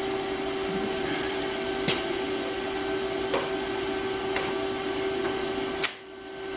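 TIG welding arc on mild steel: a steady electric buzz with a few faint clicks, laying a tack weld on a pipe end cap. Near the end it cuts out suddenly and comes back up within about a second.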